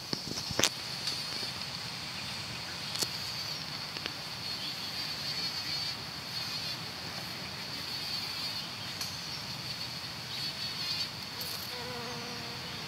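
A steady high-pitched insect drone in the background, with a bumblebee's low buzz coming in near the end as it flies off a rose. A sharp click under a second in and another about three seconds in.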